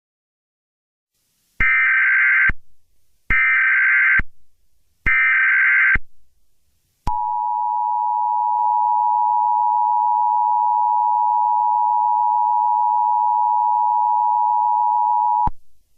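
Emergency Alert System data header: three short bursts of high digital warbling about a second apart. Then the EAS two-tone attention signal holds one steady, piercing tone for about eight seconds and cuts off sharply, announcing that an alert message follows.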